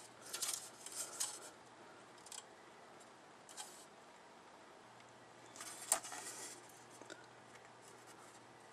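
Red plastic model-kit runners handled and turned over, giving faint rustles and light clicks of hard plastic in a few short bouts, with one sharp click about six seconds in.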